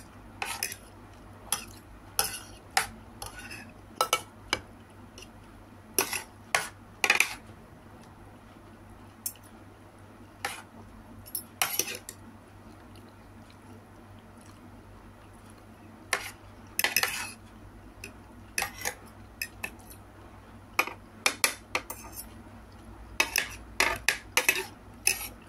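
Metal fork and spoon clinking and scraping against a plate while scooping and mixing rice and vegetables, in irregular clusters of short clicks with a lull around the middle.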